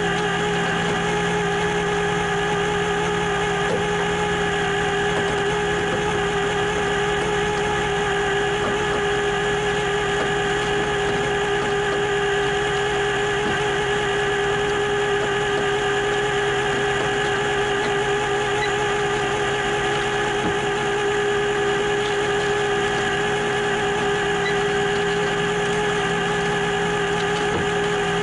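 An engine running steadily at one speed, with a steady whine that never changes.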